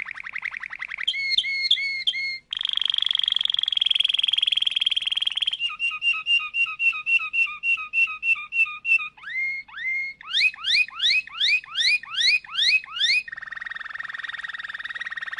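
Domestic canary singing a song built of separate tours: a fast trill and a few chirps, then a buzzing roll, then a run of repeated chirps about five a second, then rising whistled notes repeated about three a second, ending in another buzzing roll.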